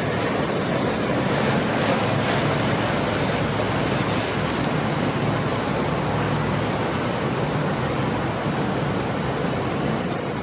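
Bank of large outboard motors on a centre-console powerboat running at low speed: a steady low engine hum under the wash of water, with wind on the microphone.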